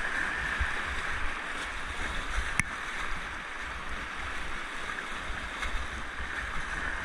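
Rushing whitewater of a high-water creek rapid, heard from a river tube riding through it, with a low uneven rumble underneath. A single sharp click about two and a half seconds in.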